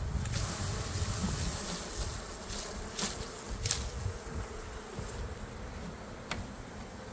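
A swarm of honeybees buzzing steadily, a continuous hum, with a few sharp clicks about three seconds in, a moment later, and near the end.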